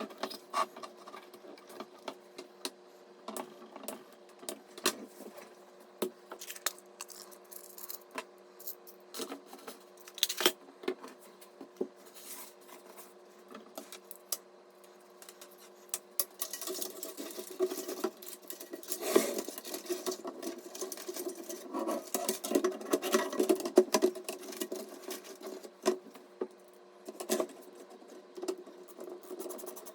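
Hands working on computer parts during a PC build: scattered small clicks and knocks of components and fittings, with a denser stretch of scraping and rattling handling through the middle, over a faint steady hum.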